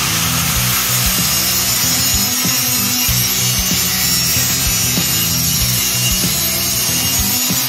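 Makita angle grinder running steadily under load, its disc biting into a shopping cart's steel tubing, with background rock music underneath.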